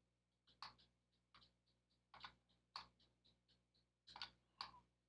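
Faint, irregular clicking of a computer keyboard and mouse, about a dozen separate short clicks spread unevenly.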